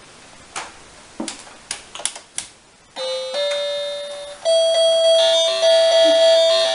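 A few light clicks, then about three seconds in a toy electronic keyboard starts sounding held notes that step up in pitch, the last one held for a couple of seconds.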